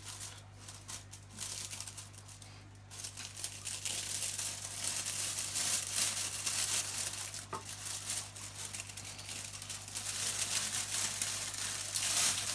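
Plastic oven bag crinkling and rustling as it is handled and filled with a sauce-coated chicken breast. The crinkling is light at first and grows much louder about three seconds in.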